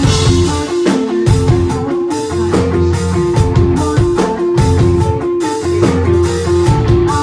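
Rock band playing live: a repeating electric guitar riff over bass and a drum kit.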